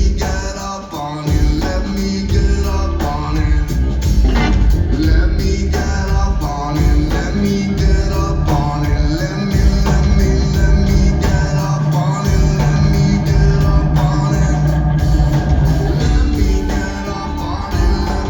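A rock band playing live: loud, heavy bass and drums with guitar, and a voice singing over the mix.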